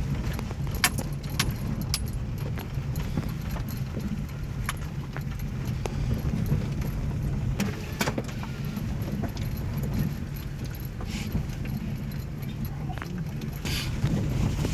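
Car driving over a rough dirt track, heard from inside the cabin: a steady low rumble of engine and tyres, with scattered clicks and knocks as the car jolts over the bumps.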